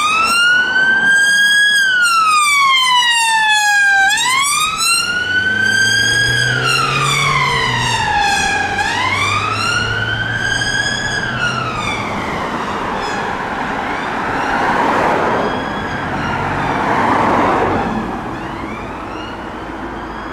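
Police cell van's siren on the wail setting, rising and falling slowly about every four seconds, with the van's engine pulling away beneath it. The wail fades out about twelve seconds in, and road noise swells twice afterwards.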